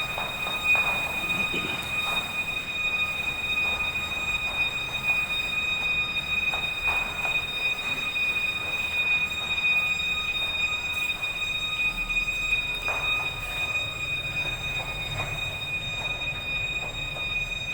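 Fire alarm sounder giving a continuous, steady high-pitched tone, with a few faint knocks in the background.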